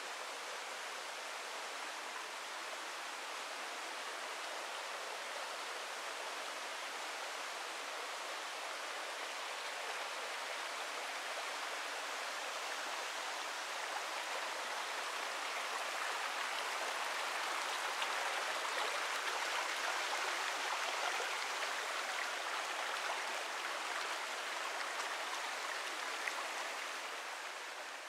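Rushing water of a forest stream: a steady, even rush that swells gradually towards the middle and eases off near the end.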